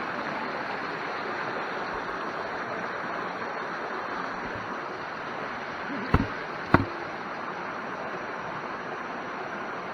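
Steady rush of a stream or waterfall. Two sharp knocks about six seconds in, half a second apart, are the loudest sounds.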